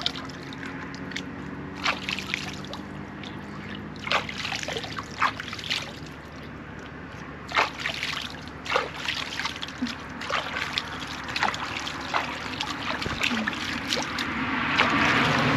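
Water sloshing and splashing, with scattered sharp knocks and clicks, and a rush of noise building near the end.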